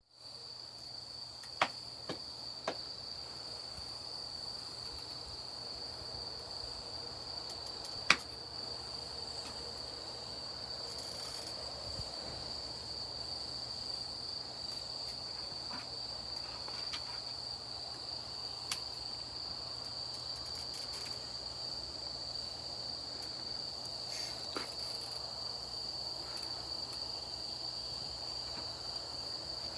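Campfire crackling with occasional sharp pops, the loudest a little past eight seconds in, over insects trilling in a steady high unbroken tone.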